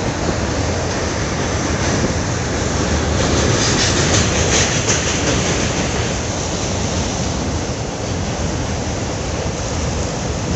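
Train running across a steel truss bridge: a steady rumble and rattle of wheels on the rails, with a run of sharper clicks about four seconds in.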